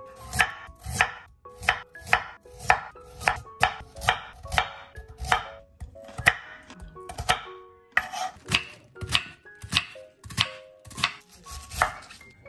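Kitchen knife slicing zucchini and carrot into half-moons on a wooden cutting board, then cutting cabbage: a steady run of sharp knocks of the blade on the board, a little under two a second.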